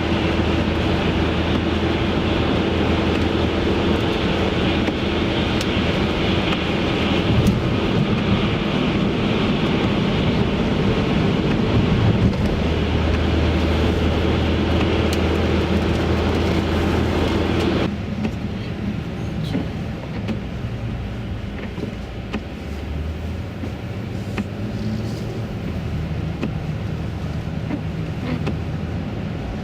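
Road noise inside a moving car: a steady low engine and tyre hum under a rushing noise. A little over halfway through, the higher rushing part cuts off suddenly, leaving a quieter, lower hum.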